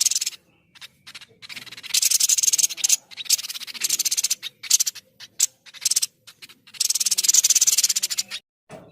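White-breasted babbler (tepus dada putih) singing: a series of rapid, high-pitched rattling trills, broken by short pauses, with the longest trill lasting about a second and a half near the end.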